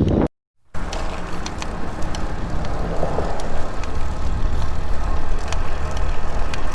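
Steady wind and road noise from riding a road bicycle, heard through a bike-mounted GoPro, with a low rumble and scattered light ticks. Just after the start the sound drops out completely for under half a second, an edit cut.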